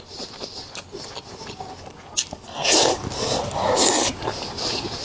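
Close-miked eating sounds: small wet clicks of chewing, with two louder noisy bursts of about half a second each near the middle.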